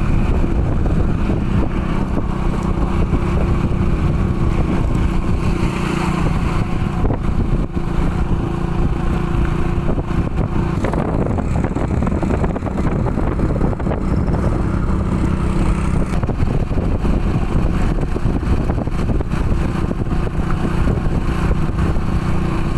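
Engine of a moving road vehicle running at a steady cruising speed, heard from on board: a continuous even drone with road noise.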